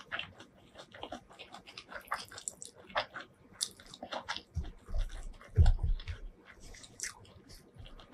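Close-miked eating sounds: wet chewing and mouth clicks, with bare fingers squishing and mixing rice into chicken curry, making many short crackly clicks. A few dull low thumps come around the middle and are the loudest sounds.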